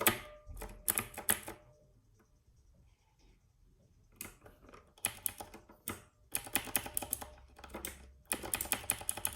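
Typing on a Royal Kludge RK61 60% mechanical keyboard: runs of rapid key clicks, with a pause of about two seconds after the first flurry, then faster, denser typing through the rest.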